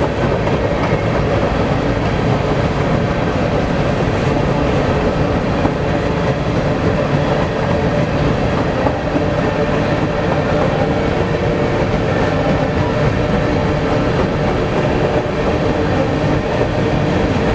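Covered hopper cars of a grain train rolling past, steel wheels on rail making a loud, steady rumble with faint steady ringing tones mixed in.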